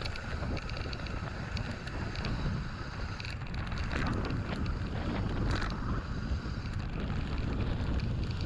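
Mountain bike descending a rough dirt and gravel trail: tyres rolling over the ground with frequent small clicks and rattles from the bike, and wind buffeting the handlebar-mounted camera microphone.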